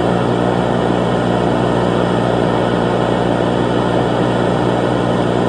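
Steady, loud droning noise: a dense hiss with a low, even hum underneath, unchanging throughout.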